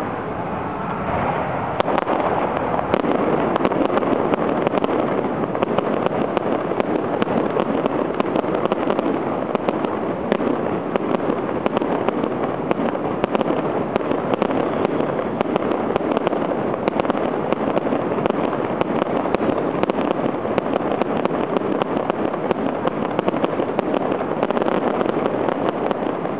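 Fireworks display going off in a steady, dense barrage: overlapping bursts with many sharp pops and crackles throughout.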